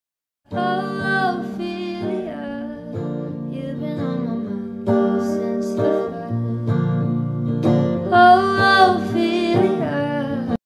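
Background music: plucked acoustic guitar with a singing voice, starting about half a second in and cutting off abruptly at the end.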